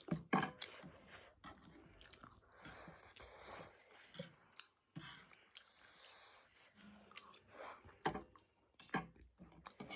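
Mouth sounds of a person chewing Chapagetti instant noodles: irregular wet smacks and small clicks, with a few sharper taps, the loudest near the start and about eight seconds in.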